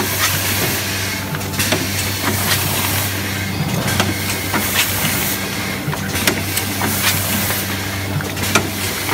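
Rotary doypack spout-pouch filling and capping machine for liquids running: a steady hum with swelling hisses and frequent short, sharp clicks from its moving grippers and heads.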